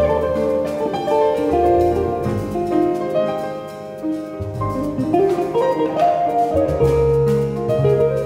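Small jazz group playing live: hollow-body electric guitar carrying the line over piano chords, walking double bass and light drums.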